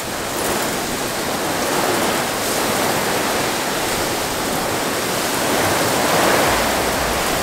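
Heavy storm rain pouring down with wind, a steady loud rush that swells slightly about six seconds in.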